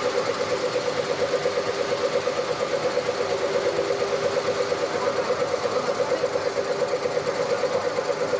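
CNC wood-turning lathe running, a steady hum that pulses evenly several times a second.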